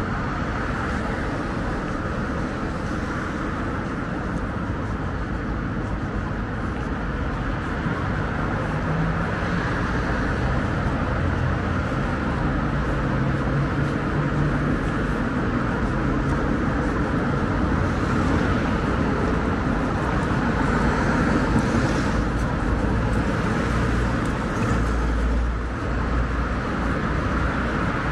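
Steady road traffic on a wide multi-lane city street: cars and vans passing with engine and tyre noise that swells and fades, and a deeper low rumble near the end.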